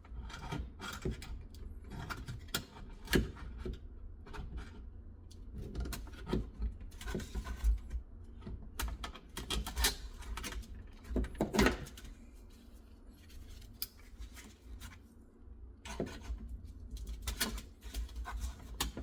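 Metal flashing being pinched and bent at a corner with needle-nose pliers: irregular clicks, crinkles and scrapes of thin sheet metal, some sharper snaps among them.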